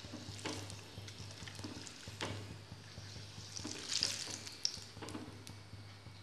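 Hot oil sizzling faintly in a nonstick kadai, with light taps and scrapes of a slotted spoon skimming fried curry leaves out of it. A brief spell of crackling about four seconds in, over a steady low hum.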